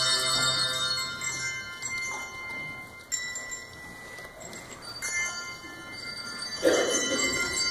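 Hand-held bells rung by a group of children: notes ring on and slowly fade, with fresh strikes about three and five seconds in and a louder, noisier moment near the end.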